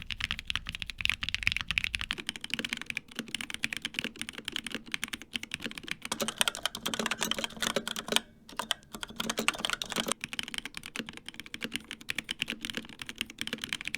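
Fast continuous typing on mechanical keyboards: a Monsgeek M1 with Akko Piano Black linear switches, then a Razer Pro Type Ultra with Razer Orange tactile switches, the keystrokes clattering many times a second with a brief pause about eight seconds in.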